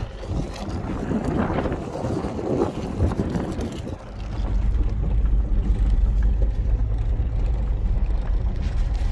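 Truck crawling over a rough dirt trail: engine and tyre noise, irregular and rattly for the first four seconds, then a louder, steady low rumble from about four seconds in.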